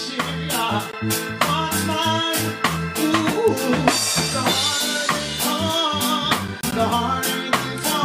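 Live reggae band playing: a man singing over bass guitar and a drum kit keeping a steady beat.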